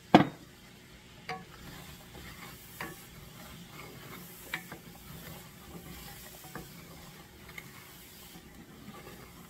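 Wooden spatula stirring and scraping a milk sauce in an enameled cast-iron skillet, with scattered light scrapes and clicks. A sharp knock just at the start is the loudest sound.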